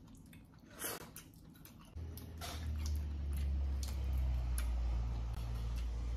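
Cooked crab and shrimp shells being cracked and peeled by hand, a scatter of small clicks and crackles with a louder crack about a second in. A steady low hum comes in about two seconds in.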